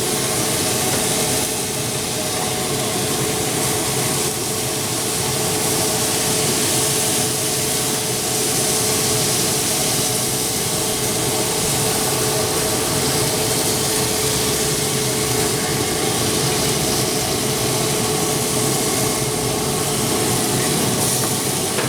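Weber SmokeFire pellet grill's fan running: a steady hum with a constant whine over an even hiss.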